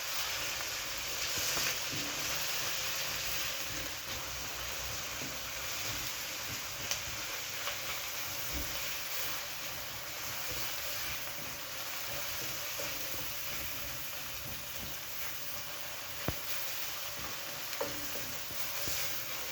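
Chopped onions sizzling in hot oil in a pan as they are stirred, a steady frying hiss with the odd small knock and scrape of the spoon against the pan.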